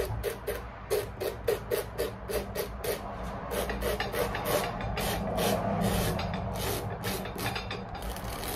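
Sandpaper rubbed quickly back and forth by hand on the leather heel seat of a work boot, about four scratchy strokes a second. After a few seconds the strokes run together into a steadier rubbing.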